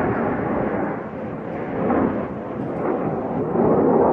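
Jet aircraft engines flying over in formation: a continuous rumbling roar that swells and eases.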